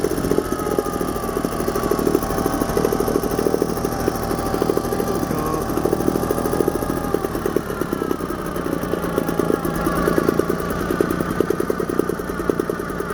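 British Seagull Forty Plus single-cylinder two-stroke outboard motor running steadily at a fast, even firing beat.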